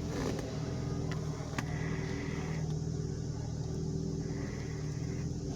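Car engine idling steadily, with a light click about one and a half seconds in. The engine has a misfire and a hunting idle, which the mechanic puts down to the coolant temperature staying low, and he suspects the thermostat.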